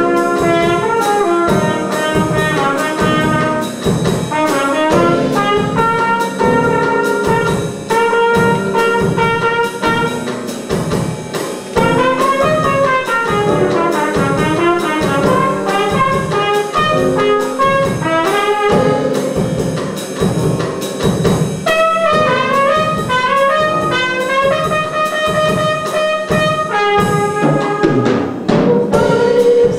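Trumpet playing a melodic jazz solo over piano and drum kit, with a steady beat from the drums.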